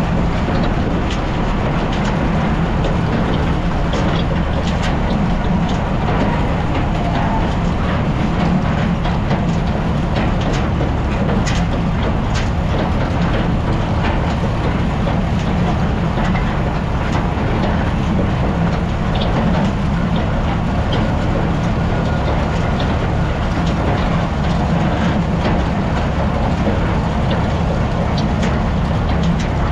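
Farmall tractor's four-cylinder engine running steadily as it pulls across a field, with frequent irregular clanks and rattles from the tractor and its towed wagon.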